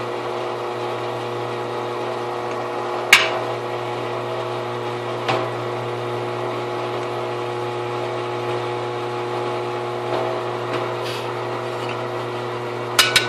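Drill press motor running at a steady speed with an even hum, a sharp click about three seconds in, a lighter one about two seconds later, and a few clicks near the end.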